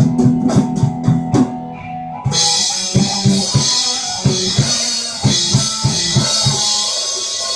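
Drum kit and electric guitar playing heavy metal together: a quick run of drum and cymbal strokes, then about two seconds in a sudden bright sustained wash opens up over evenly spaced low drum hits and held guitar notes.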